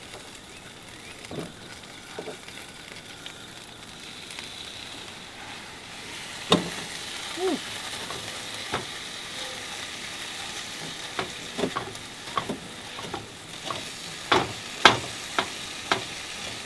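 Ground turkey sizzling in a pan on a two-burner Camp Chef camp stove, with a spatula scraping and knocking against the pan as it is stirred. The knocks come more often toward the end.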